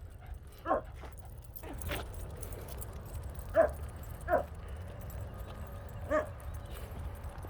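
Dogs barking: a few short, separate barks a second or more apart, over a low steady rumble.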